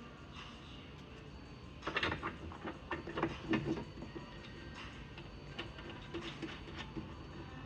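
Light metal clicks and knocks of bed-frame hardware being fitted and tightened by hand, bunched together about two seconds in and then coming more sparsely.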